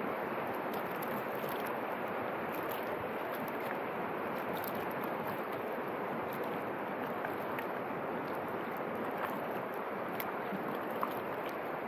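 Steady rush of flowing river water around a small boat, with a few faint small splashes or drips from kayak paddles.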